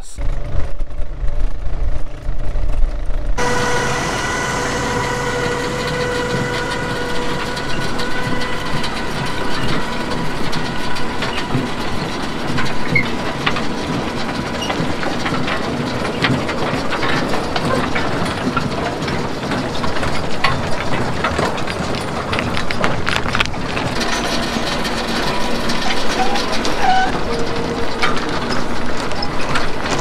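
Potato windrower working a row: a steady engine drone with the rattle of its chain conveyor and the clatter of soil, rocks and potatoes. A low rumble fills the first three seconds or so before the machine sound starts.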